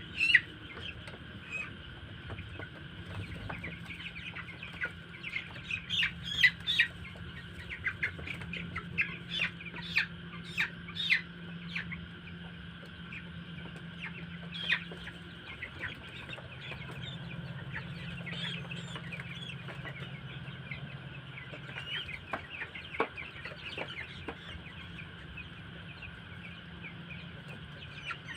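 A flock of two-week-old chicks peeping together in a continuous high chorus, with many sharper individual cheeps standing out. A steady low hum runs underneath.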